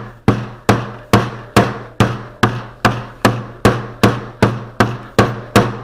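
A wooden putty mallet beating a lump of glazing putty on a board to knead it: a steady rhythm of dull blows, a little over two a second, each with a short low ring.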